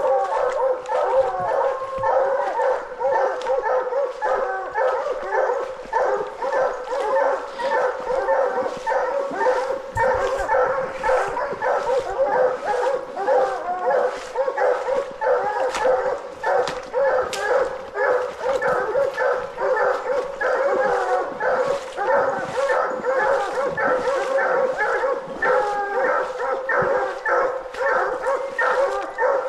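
Coonhounds barking nonstop, several at once, their barks overlapping at a few per second.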